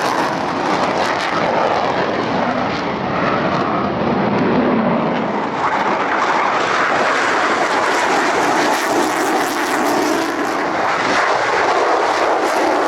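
F-35 fighter's jet engine running loudly, a dense steady rush whose tone shifts slowly over several seconds.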